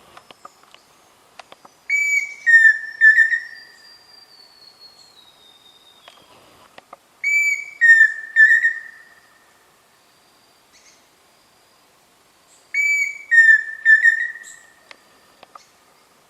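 Pheasant cuckoo singing: three whistled phrases about five seconds apart, each a higher held note followed by three shorter, lower whistles, the last of them quavering.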